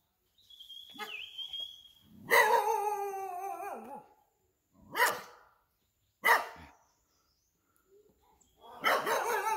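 A dog barking in several separate bursts. The longest and loudest is a drawn-out, wavering bark about two to four seconds in, followed by two short sharp barks and another burst near the end.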